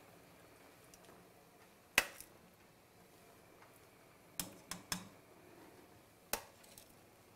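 Metal kitchen tongs clicking and tapping on a stainless steel stew pot: one sharp click about two seconds in, three quick clicks around four and a half to five seconds, and one more past six seconds.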